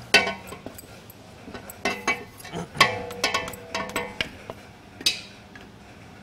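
A large stainless steel mixing bowl knocking and ringing as ciabatta dough is scraped out of it with a plastic dough scraper. There are several clanks, the loudest about three seconds in, each leaving a ringing tone.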